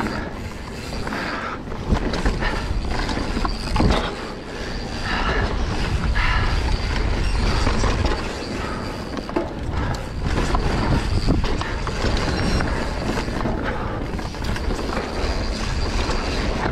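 Mountain bike riding fast down a dirt singletrack: tyres rolling and skidding over dirt and roots, the bike rattling, over a constant low rumble. Sharp knocks mark hits on bumps, one about two seconds in and another about four seconds in.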